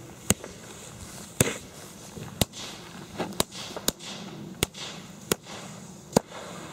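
About eight sharp firecracker-like cracks at irregular intervals over a steady high hiss, while the fuse of a large cipolla flash-powder firecracker burns and smokes before its main bang.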